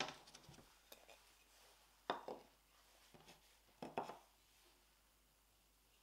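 Frame moulding corner samples handled and set down against a painting on a table: light knocks and taps, one at the start followed by a few small ticks, another about two seconds in, and a close pair about four seconds in.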